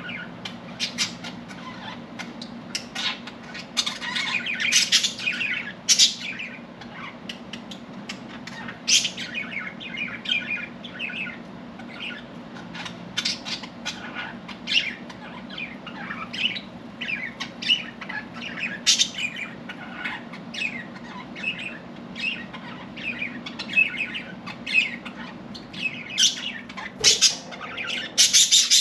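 Several budgerigars chattering: a dense run of short, quick chirps and squawks, busiest a few seconds in and again near the end, over a steady low hum.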